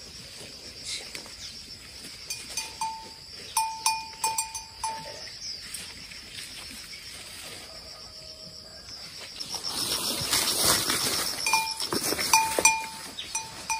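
A small bell clinking in short runs of strikes at one fixed pitch, a few strikes about 3 to 5 seconds in and again near the end. Rustling of grass and leaves swells in the last few seconds, over a steady high insect drone.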